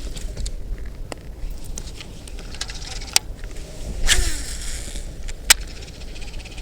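Strong wind buffeting the microphone as a steady low rumble, with a few sharp clicks and a short rushing burst with a falling tone about four seconds in.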